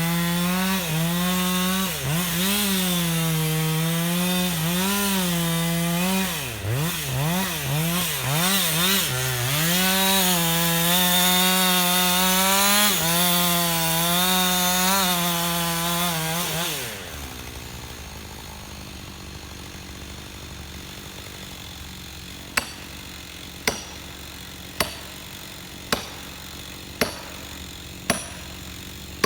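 Husqvarna 560XP two-stroke chainsaw cutting into wood, its engine pitch dipping and rising as the load on the chain changes, then cutting off. Near the end there is a series of about seven sharp knocks, roughly one a second.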